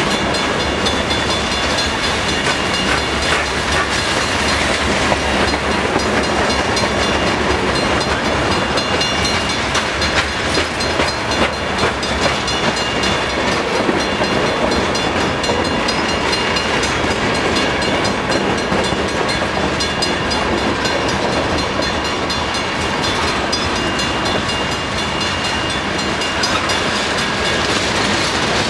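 Freight cars of a long manifest train rolling slowly past close by: a steady rumble with the clatter of steel wheels over the rail joints.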